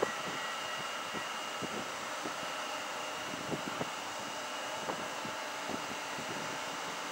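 EP20 electric locomotive standing with its cooling fans running: a steady rushing hum with a thin, high, steady whine over it, and scattered faint clicks.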